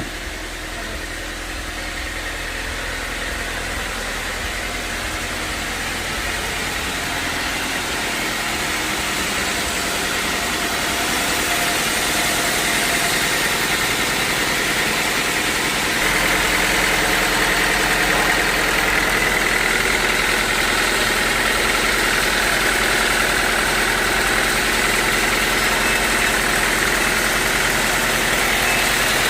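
Sawmill machinery running steadily, growing gradually louder, with a change in its sound about sixteen seconds in.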